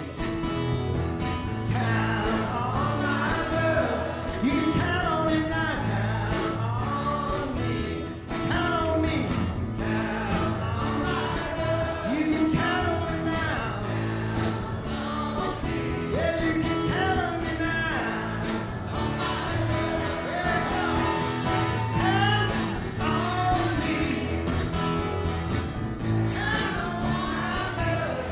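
Live acoustic band: two acoustic guitars strummed and an upright double bass plucked, with male singing over them.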